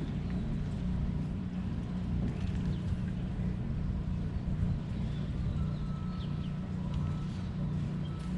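Bass boat's outboard motor running steadily, a low rumble.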